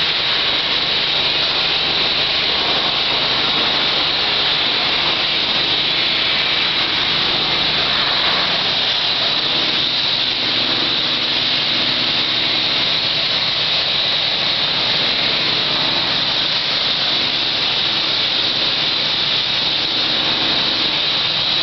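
Hot-water pressure washer wand spraying a high-pressure jet onto plant equipment and floor for degreasing: a loud, steady hiss, with a faint hum from the machine underneath.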